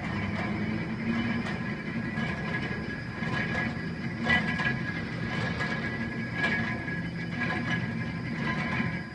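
Railway locomotive turntable rotating: a steady low mechanical running noise from the turning bridge, with a thin metallic squeal over it and occasional clanks, the loudest about four seconds in and again around six and a half seconds in.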